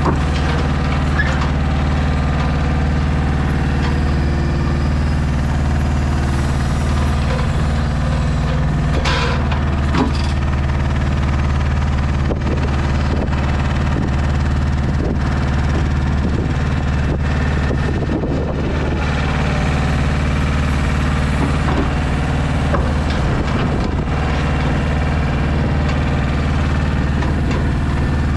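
DAF XF 480 truck's diesel engine running steadily to power the Kennis loading crane's hydraulics, with a few knocks and clanks from the crane and its grab as it swings and sets down a pack of paving stones.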